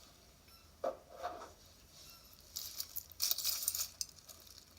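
Loose pieces of jewelry clinking and jangling against each other as they are rummaged through, with a brief soft thump about a second in. The jangling comes in a burst lasting about a second and a half.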